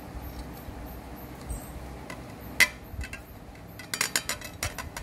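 Crockery clinking and knocking as plates are handled: one sharp knock about halfway through, then a quick run of light clicks near the end.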